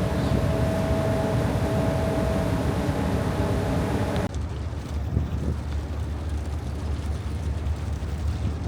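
Car ferry's engines running with a steady drone and a held tone over wind and water hiss. About four seconds in the sound changes abruptly to a deeper, duller engine rumble with little hiss.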